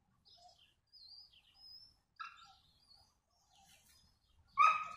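Small birds chirping in short, high calls, with a louder call about two seconds in and a sharper, louder one near the end.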